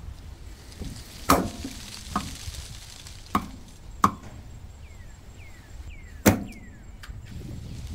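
Cleaver chopping diced potato on a thick wooden chopping block: about six single, spaced knocks of the blade on the wood, the loudest about six seconds in.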